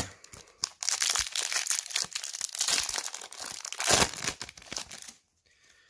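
Foil trading-card booster pack being torn open, the thin foil wrapper crinkling and crackling in quick bursts, with the loudest rip about four seconds in.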